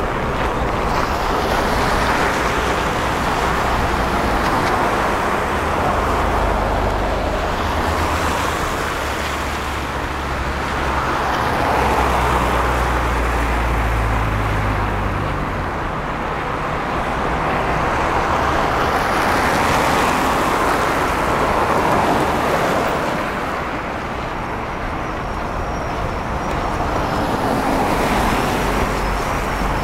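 Road traffic on a snow-covered city avenue: cars pass one after another, each swelling and fading, with a heavier low engine rumble from about six to fifteen seconds in.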